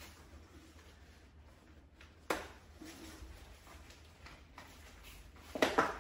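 Plastic notches of a hood's transparent film snapping out of the holes in a plastic hood frame: one sharp click about two seconds in, then a quick cluster of clicks near the end, with soft rustling of the hood fabric between.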